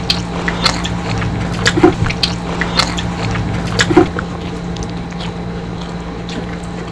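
Crispy fried tilapia crackling as it is pulled apart by hand and chewed: sharp, irregular crunches, busiest in the first four seconds, over a steady low hum.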